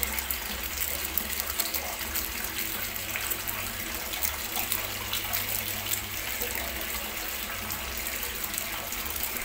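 Aluminium foil crinkling and rustling as hands twist the ends of a foil-wrapped roll shut, a steady crackly rustle.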